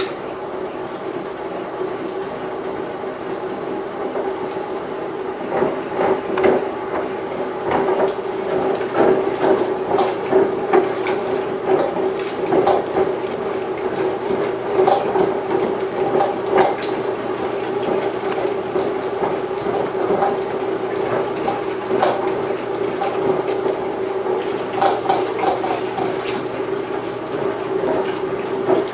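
Motorized No. 32 meat grinder, belt-driven by an electric motor, switching on and running with a steady hum while grinding cubed pork shoulder. From about five seconds in there are irregular clicks and crackles as cubes are fed into the auger and pushed through the cutting plate.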